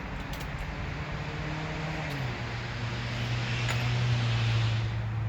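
A motor vehicle engine running steadily. Its hum drops a step in pitch about two seconds in and then gets louder.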